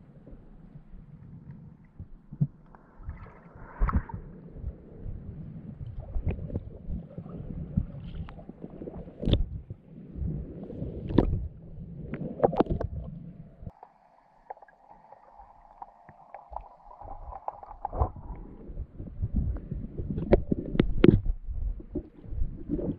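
Muffled sloshing and bumping of sea water heard underwater, with many irregular knocks. For about four seconds midway a steady hum sounds while the low rumble drops away.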